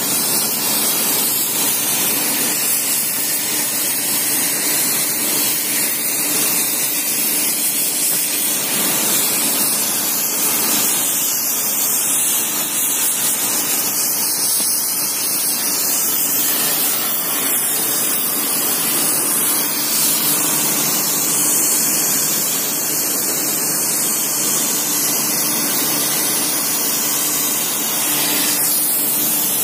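Shaft-straightening machinery running in a rolling mill: a steady, loud hiss with a faint low hum underneath.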